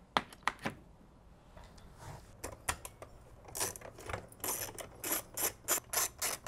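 A metal hand tool working at a transformer mounting nut. First come a few sharp metallic clicks, then from about halfway in a run of short scraping, ratcheting strokes, roughly four a second.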